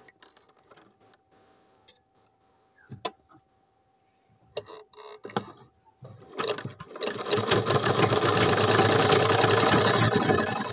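Tailor's sewing machine: a few small clicks of handling, then about six seconds in it starts and runs fast for about four seconds, a rapid even clatter of stitching.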